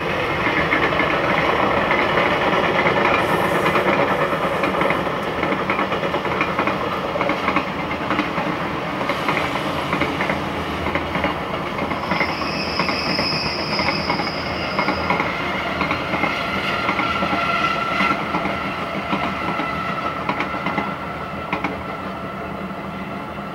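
Container freight train hauled by an EF510 electric locomotive, rolling past and decelerating hard under braking: wagon wheels clatter over rail joints, with a high squeal about halfway through that gives way to a lower steady squeal. The sound eases off near the end as the train slows.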